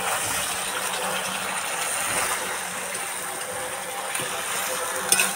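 Chicken pieces sizzling steadily in spiced oil in a wide open pan as they are slow-fried and stirred with a metal spatula, browning uncovered at the kosha stage. A short metal clink of the spatula near the end.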